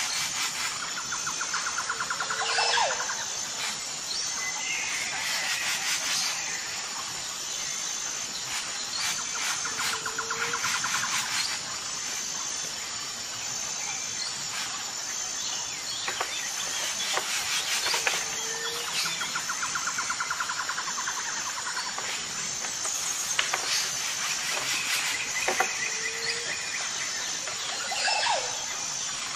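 Birdsong over a steady insect chorus: one bird's call, falling in pitch, recurs about every eight seconds amid trilled phrases, over a high, pulsing insect buzz.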